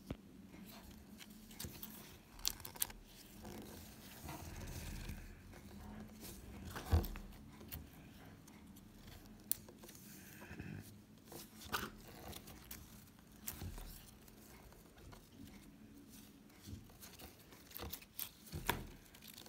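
Firm green slime being squeezed and torn apart by hand: scattered soft crackles, clicks and short tearing sounds, with one sharper snap about seven seconds in.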